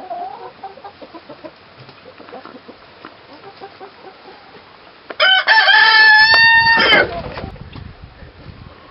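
A rooster crowing once, loud and nearly two seconds long, about five seconds in; soft chicken clucking before it.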